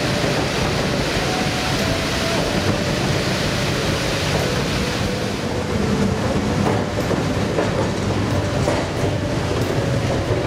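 Rushing water of a waterfall at first. About halfway through it gives way to the steady rumble and clatter of the Giessbach funicular car running on its rails, with scattered clicks and a faint thin wheel squeal.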